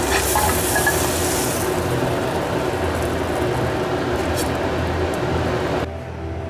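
A sandwich sizzling in a frying pan over a steady hum, with a brighter hiss and a spatula scraping under it at the start as it is lifted out; the sound cuts off suddenly near the end.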